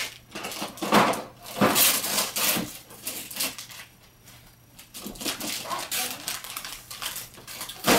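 Wrapping paper crinkling and tearing in irregular bursts as presents are unwrapped, with a quieter spell about four seconds in.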